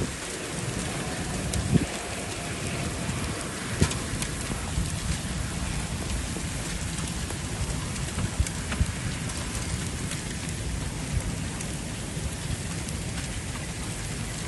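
Heavy rain falling steadily during a thunderstorm, with scattered sharp taps of drops striking nearby surfaces and a low rumble underneath.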